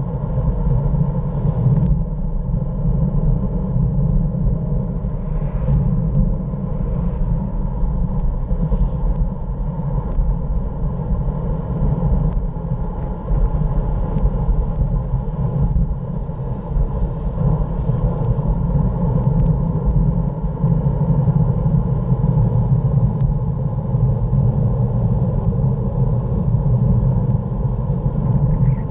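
Steady wind rush buffeting the microphone of a bike-mounted camera during a fast road-bike descent, mostly a deep rumble with little high hiss.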